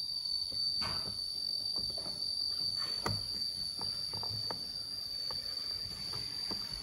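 A steady, high insect trill, with soft clicks and knocks scattered through it as the plastic top cover is pressed onto a chainsaw body by hand.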